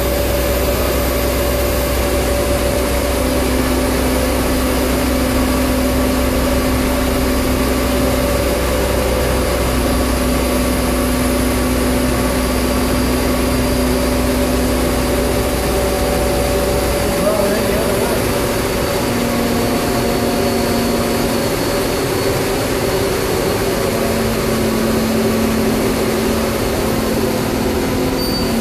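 Mobile crane's engine running steadily under load as it lowers a generator, a continuous drone with humming tones that come and go; a deep low rumble drops away about two-thirds of the way through.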